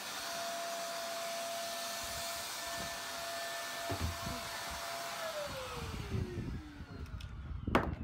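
Upright vacuum cleaner running with a steady whine, then switched off about five seconds in, its motor pitch falling as it spins down. A sharp knock near the end.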